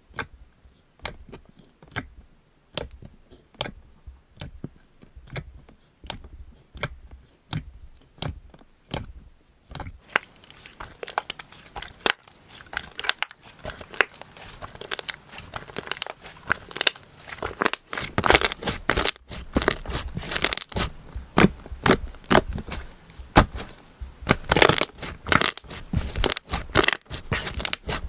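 Slime being pressed and worked by hand, giving sharp clicking pops: spaced out at one or two a second at first, then from about ten seconds in a denser, louder crackle.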